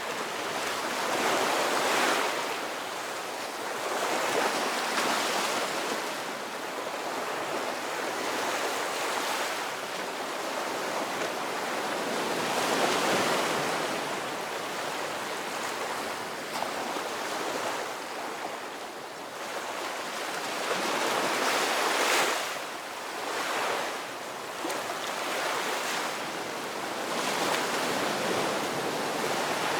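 Ocean surf: a steady rush of waves that swells and eases every few seconds.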